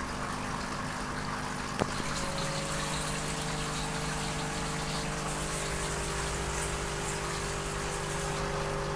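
Marine aquarium pump and filter running: a steady rush of moving water with a low hum, and one brief click about two seconds in.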